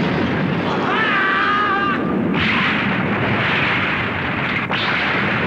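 Animated-film battle sound effects: a loud, continuous explosion-like rumble. A wavering high-pitched cry runs over it from about one to two seconds in, and the rumble shifts abruptly a little after two seconds.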